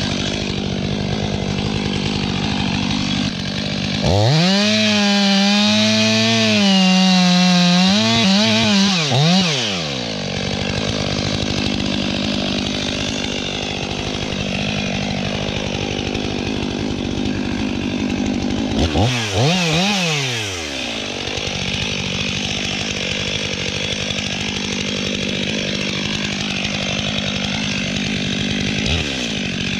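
STIHL MS500i fuel-injected two-stroke chainsaw idling, then revved to high speed for about six seconds from roughly four seconds in, its pitch wavering and dipping before it drops back to idle. It is revved again briefly about nineteen seconds in and once more near the end.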